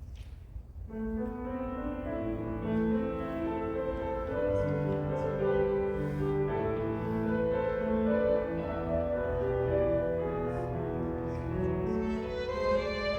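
Violins and piano playing a slow piece, coming in softly about a second in with long held notes and chords.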